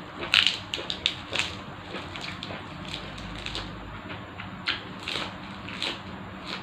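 Close-up mouth sounds of someone eating: chewing with wet smacks and clicks. There is a quick run of smacks in the first second and a half, then a few single ones later.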